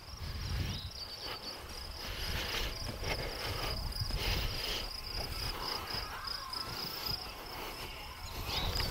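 A steady, high-pitched insect trill from the meadow grass, with a low uneven rumble underneath.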